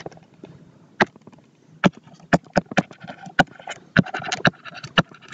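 Stylus tip tapping and clicking against a tablet screen while handwriting: about a dozen sharp, irregular clicks.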